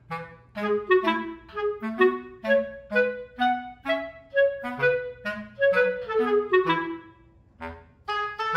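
Background music: a light melody of short separate notes, about two to three a second, with a brief lull near the end.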